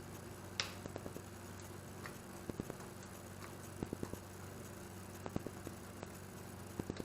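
Faint steady electrical hum with scattered light clicks and taps at an uneven pace.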